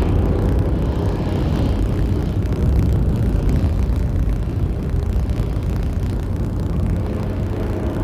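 Heavy construction vehicle's engine running steadily, a low rumble.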